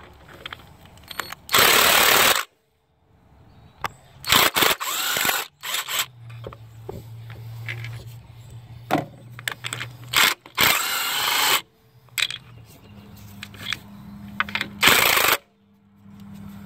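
Impact wrench in about four short, loud bursts, spinning the 17 mm nuts off an engine mount bracket, with metal clicks of a ratchet between the bursts.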